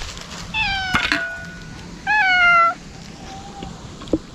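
Stray cat meowing twice, each call falling in pitch, the second longer and louder, then a faint short mew.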